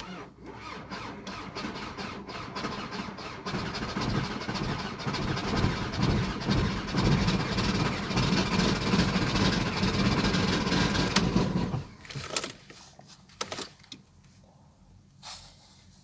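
VW Golf 4 1.9 TDI (ALH) four-cylinder diesel engine starting and idling with an even, rapid knock, then switched off and stopping abruptly about twelve seconds in. A few clicks follow.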